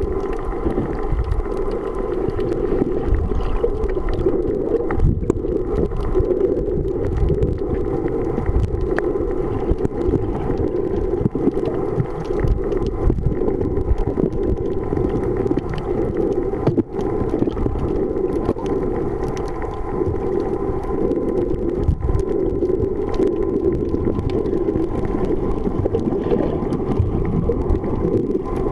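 Underwater sound recorded by a submerged camera: a steady muffled hum and rumble of moving water, with no distinct events.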